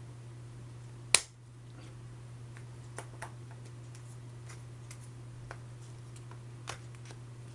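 One sharp click about a second in, then a few faint clicks, as a tight-fitting 19×10×7 mm flanged ball bearing is worked by hand onto the end of the ER11 collet-chuck extension shaft. A steady low hum runs underneath.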